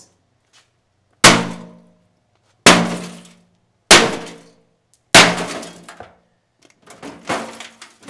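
Four sledgehammer blows on a Homemaker microwave oven's sheet-metal casing, about one and a quarter seconds apart, each a sharp crash with a short metallic ring. Lighter clattering near the end as the wrecked microwave is moved.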